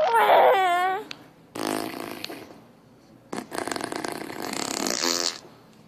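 Imitation fart noises made by a person: three buzzing, sputtering raspberries. The first lasts about a second, the second is shorter, and the last and longest runs about two seconds.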